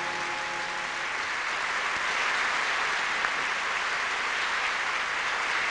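Studio audience applauding steadily at the end of a song, while the orchestra's last held chord dies away in the first second.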